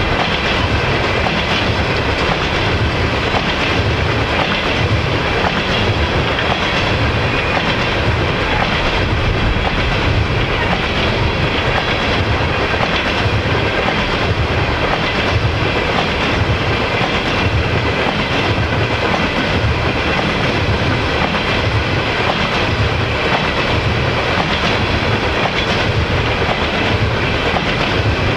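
A freight train of tank cars rolling past, its wheels clacking in a steady rhythm over the rail joints under a continuous rumble.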